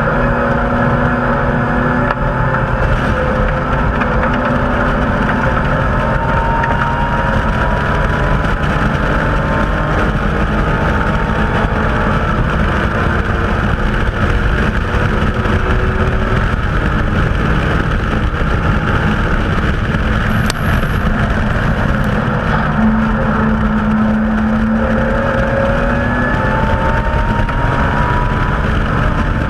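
BMW M Coupe's straight-six engine running hard at racing speed on a lap, its pitch rising and falling with throttle and gear changes over heavy road and wind noise.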